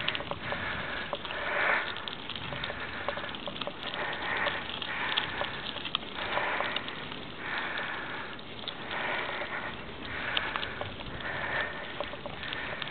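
A person breathing hard and rhythmically, about one breath a second, with scattered small clicks.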